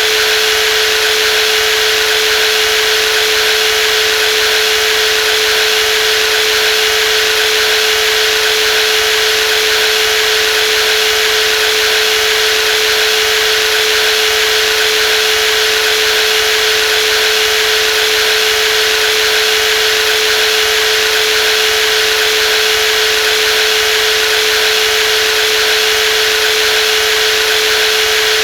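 Brushless jigsaw motor running steadily at constant speed, a high, even hum with a hiss over it.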